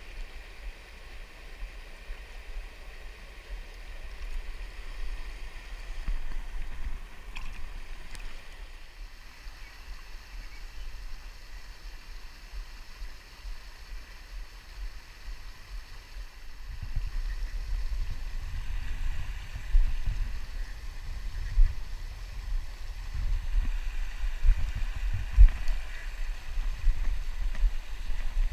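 River water flowing over a shallow riffle and a small weir, a steady rushing hiss with some gurgling. From just past halfway, irregular low rumbling buffets on the microphone join it, with a few sharp peaks.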